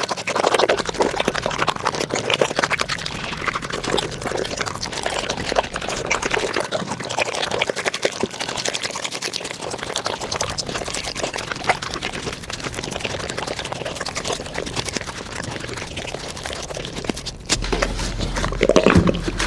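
A dog's mouth making rapid, irregular wet clicks and smacks, the sound of a dog lapping or eating. A low hum joins near the end.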